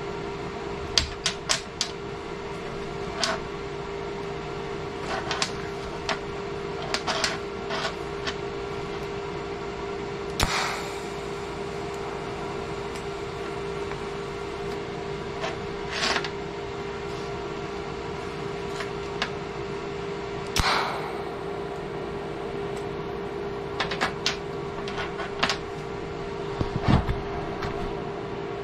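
Metal tools and small steel parts clinking and clattering on a workbench every few seconds, over a steady low hum. One heavier knock comes near the end.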